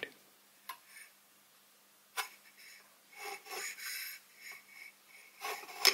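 Height-gauge scriber scratching marking-out lines across a cast soleplate, a run of short scratchy strokes, with a few light metal clicks as the casting is moved against the gauge.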